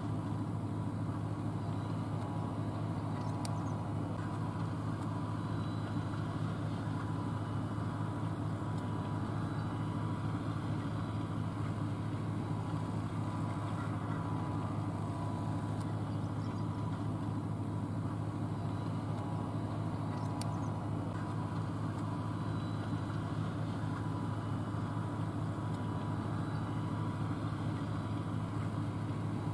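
John Deere 8R tractor's six-cylinder diesel engine running steadily under load while pulling a 16-row planter, a constant low drone with no changes in speed.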